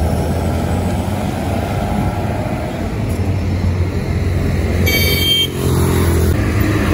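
Street traffic noise: a steady rumble of road vehicles, with a short horn toot about five seconds in and a motorcycle riding past near the end.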